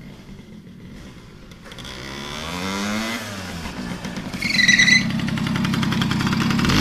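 Small two-stroke Jawa Pionýr moped riding up and pulling in close, its engine note rising and then falling as it comes in, then running with a fast, even putter. A short high-pitched tone sounds about halfway through.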